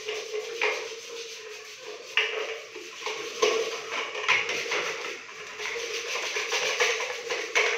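Hand scrubbing and scraping at a dirty plastic toilet cistern fill valve: irregular scratchy strokes with a few small knocks of tool on plastic.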